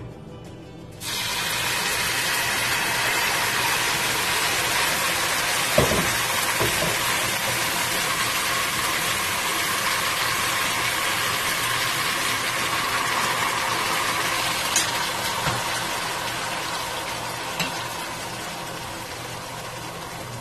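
Blended red chile sauce poured through a mesh strainer into hot oil in a stainless steel pot, sizzling as it begins to fry. The sizzle starts suddenly about a second in, holds steady and eases off over the last few seconds, with a couple of brief knocks along the way.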